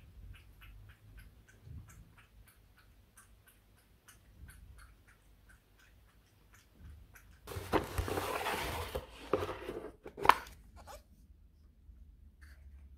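A cat crunching dry kibble from its bowl: a steady run of small crisp crunches, about four a second. A little past halfway this gives way to a louder burst of rustling and a sharp click as a cardboard box is handled and opened.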